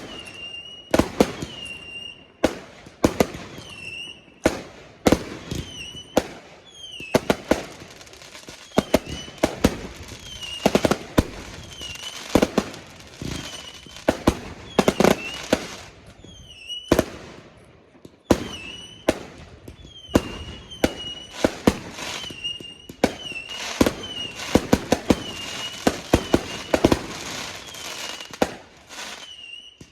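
Fireworks going off in a dense, irregular run of sharp bangs and crackles. A short high-pitched chirp repeats about once a second through it.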